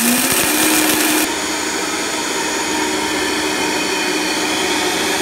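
Vitamix blender running at full speed, grinding roasted cacao beans and sugar into a powder. The motor's pitch rises as it comes up to speed at the start, then holds steady, and the gritty hiss of the beans becomes less harsh a little over a second in.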